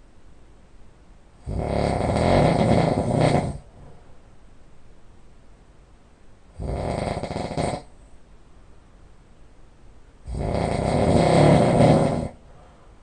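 A sleeping person snoring heavily and loudly: three snores, the first and last each about two seconds long and the middle one shorter, repeating every four to five seconds with much quieter gaps between.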